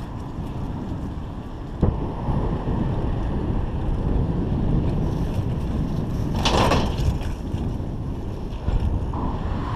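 Wind buffeting the microphone of a GoPro Hero 3 on a moving mountain bike, a steady low rumble, with a sharp knock about two seconds in and a brief louder rush about six and a half seconds in.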